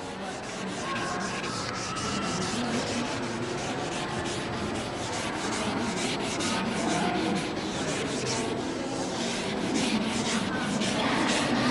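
A board eraser rubbing back and forth across a classroom board in quick, repeated strokes, wiping off what was written.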